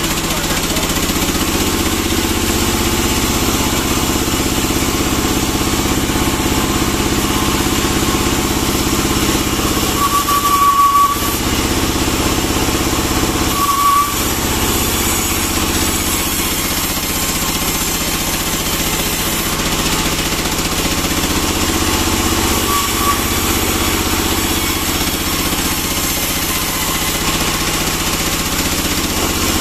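Sawmill running steadily with an engine-like drone as a pine log is pushed through the saw. Two brief high squeals come about ten and fourteen seconds in.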